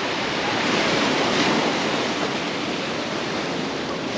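Ocean surf breaking and washing up the sand in a steady rush, swelling slightly about a second in and easing off toward the end.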